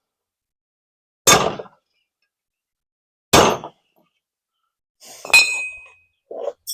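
Hammer blows on a punch driving out the governor pin of a Predator 224cc engine block: two sharp strikes about two seconds apart, then a ringing metal clink a little after five seconds in, followed by a couple of small clinks.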